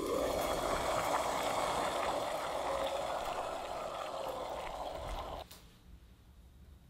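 Steady bubbling, gurgling noise of liquid that cuts off suddenly about five and a half seconds in.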